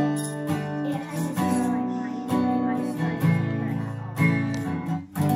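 Acoustic guitar strummed in a worship song, chords held between strums, with a last strummed chord near the end left ringing.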